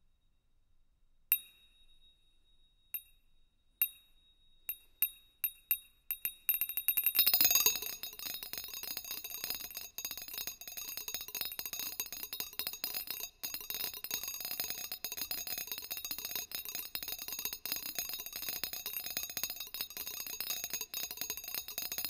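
Molecular NMR spectroscopy signals played as sound: single high, ringing pings, at first a second or so apart, come faster and faster until about seven seconds in they merge into a dense, continuous crackling shimmer standing for a vast collection of molecules.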